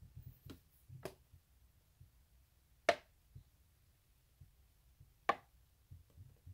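A few light, sharp clicks and taps from small makeup containers being handled, the two loudest about three and five seconds in.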